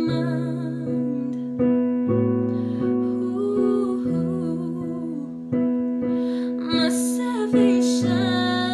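A girl singing a slow song over piano chords, with vibrato on her held notes.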